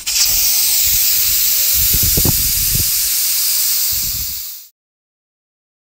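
Pressure cooker hissing steadily as steam escapes through its weighted valve, with a few low thumps; the hiss cuts off suddenly about four and a half seconds in.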